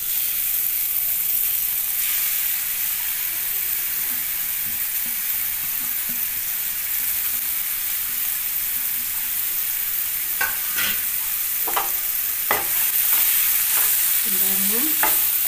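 Grated ash gourd sizzling steadily in hot ghee in a nonstick kadai as it is stirred, sautéed to cook off its water. A few sharp clicks of the stirring utensil on the pan come about two-thirds of the way through.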